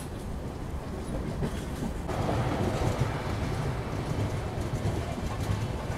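Passenger train coaches of the Kashi Vishwanath Express rolling out of a station, wheels rumbling on the track, heard from an open coach doorway. The rumble gets louder about two seconds in.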